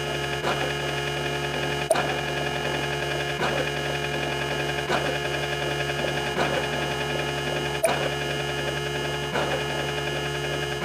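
A steady, many-toned hum with a soft click about every second and a half; two of the clicks are sharper.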